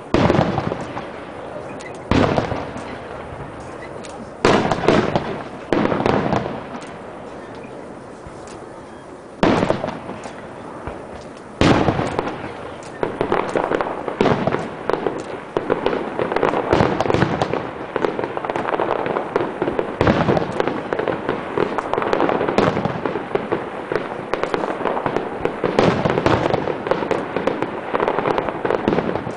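Aerial fireworks display: single shells burst with loud, echoing bangs every couple of seconds, then from about twelve seconds in a rapid barrage of bursts and crackle keeps going without a break.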